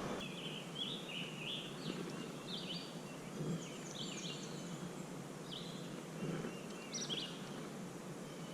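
A songbird singing: a series of short, quick chirping phrases over a faint steady background hiss.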